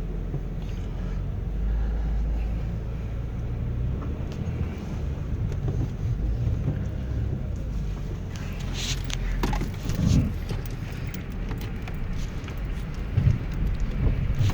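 Inside the cabin of a moving 2006 Dodge Grand Caravan: a steady low rumble of engine and road noise. A few knocks come about ten seconds in and again near the end, which the occupants put down to worn rear shock bushings.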